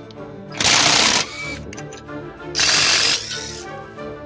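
Background music: a steady tune, with a loud hissing hit about every two seconds.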